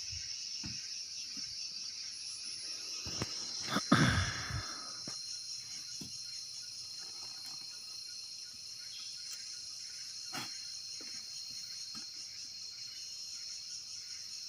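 Steady high-pitched drone of insects, with a sudden loud knock and short low rumble about four seconds in.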